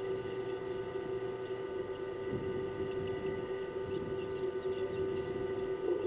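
A steady mechanical hum made of several pitched tones, with small birds chirping faintly in short high notes above it. A rough, rustling noise joins about two seconds in and fades after a couple of seconds.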